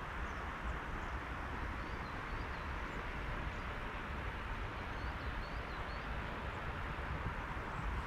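Steady rushing outdoor noise with a low rumble, with a few faint high bird chirps about two seconds in and again around five seconds in.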